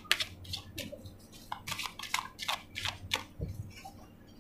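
A deck of oracle cards being shuffled by hand: a quick, irregular run of card slaps and clicks, with a soft low thud about three and a half seconds in.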